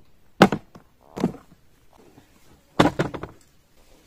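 Knocks and thuds from a hard plastic gun case being opened and handled: a sharp knock about half a second in, a duller thud about a second in, and a quick cluster of knocks near three seconds.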